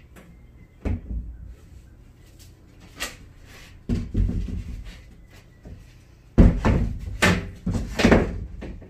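A thin plywood wall panel being worked loose and pulled off a cargo trailer's wall: scattered wooden knocks and thumps, the loudest cluster from about six and a half seconds in as the panel comes away.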